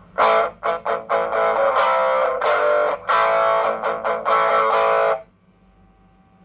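Overdriven electric guitar played through a Joyo British Sound pedal into a small Marshall amp, with the pedal's bass control switched off, so the tone is thin with little low end. A few short chopped chords come first, then ringing chords, stopping about five seconds in and leaving a faint amp hum.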